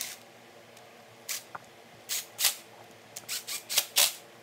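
Several sharp, irregular metal clicks of a front brake master cylinder clamp and its bolts being handled and started on a dirt bike's handlebar, more of them in the second half.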